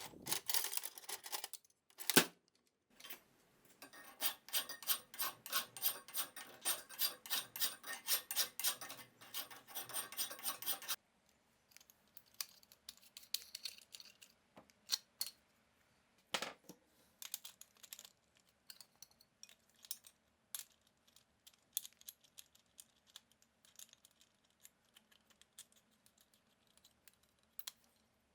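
Hand work on metal parts: a few sharp clinks, then a run of rhythmic scraping strokes at about two a second that stops abruptly, followed by scattered light ticks and taps as parts are handled.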